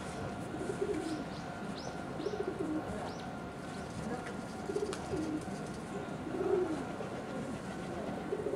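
Pigeons cooing repeatedly, a low coo about every second, over a faint steady hum, with a few short high chirps about two seconds in.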